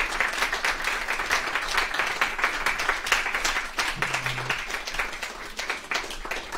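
Audience applauding: a dense patter of many hands clapping that eases off slightly near the end.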